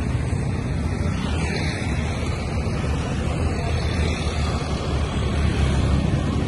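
Light road traffic, mostly motorcycles and scooters passing, heard as a steady low rumble with wind buffeting the microphone.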